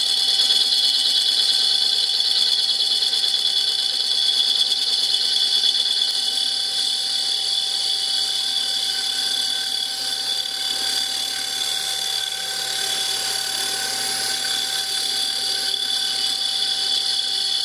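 Small HQ400 lathe-mill-drill spinning a rusty Triumph motorcycle rear brake drum while a boring bar cuts its inside braking surface dry, giving a steady high-pitched whine over the machine's hum. The bar is flexing in the cut.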